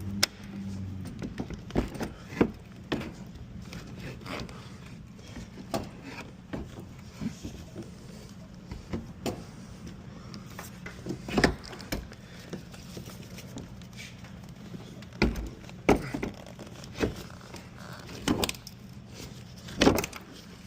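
Irregular knocks, clicks and clunks of a car door being worked by hand onto a newly fitted door hinge and its alignment pins, a few louder clunks among them, over a steady low hum.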